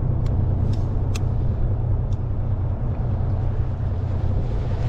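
Fishing boat's engine running steadily with a low drone. A few faint light clicks come in the first couple of seconds.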